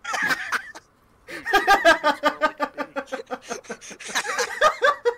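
Loud laughter: a short outburst, then after a brief pause a long run of rapid, pulsing laughs.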